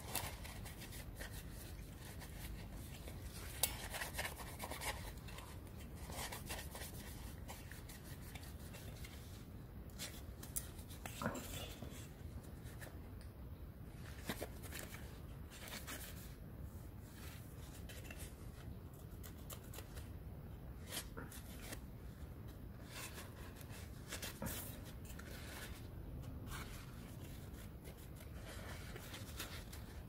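Paper tissue rubbing and wiping over a remote control's circuit board, a run of irregular scratchy rustling strokes as the board is cleaned.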